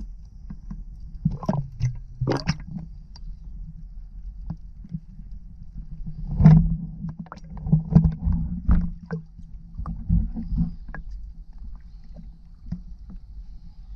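Muffled water sloshing and splashing around an action camera held half-submerged at the waterline, over a low underwater rumble. Irregular splashes and knocks come from a swimmer's strokes, with the loudest cluster about halfway through.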